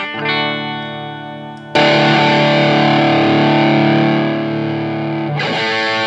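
Electric guitar, a cheap Les Paul copy, played with distortion: a ringing note fades for the first second and a half, then a loud chord is struck and held for about three and a half seconds, followed by quick picked notes near the end.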